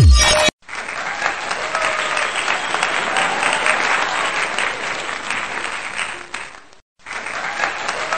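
Crowd applause laid over the edit, steady clapping that breaks off for a moment near the end and then resumes. In the first half-second the last beat of an electronic countdown track cuts off.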